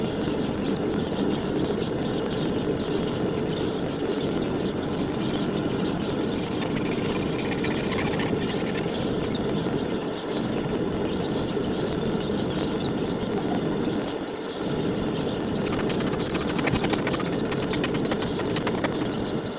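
Burners of a homemade forge furnace running with a steady, low rushing noise. Two spells of fast ticking sit on top of it.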